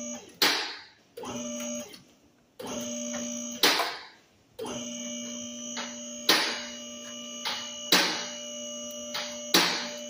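Electric motor of a two-post car lift's hydraulic pump humming in stretches, stopping twice briefly, as the lift raises the car body off its subframe and engine. About five sharp clanks ring out over the run.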